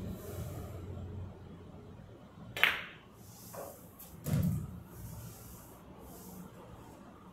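Pool cue striking the cue ball, which clicks sharply into the object ball about two and a half seconds in. About two seconds later there is a dull knock as the object ball drops into a corner pocket. A low steady hum runs underneath.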